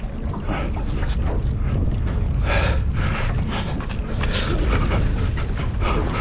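Wind buffeting the microphone, with water sloshing against the boat's hull in a few short rushes, about two and a half and four and a half seconds in.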